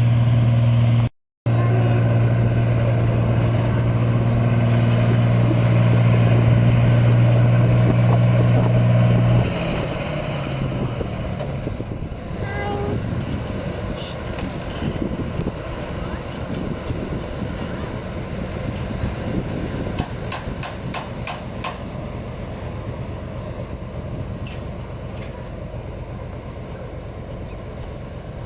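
Rice combine harvester's engine running with a loud, steady drone, cut briefly just after a second in. About ten seconds in the drone steps down in pitch and falls away, leaving a quieter, rougher rumble of the running machine with a few clicks.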